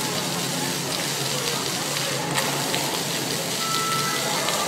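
Water jets of a floor-level dancing fountain spraying up and splashing back onto wet paving: a steady hiss of falling water.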